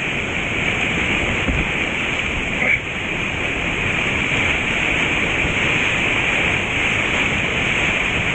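Steady rush of water and wind.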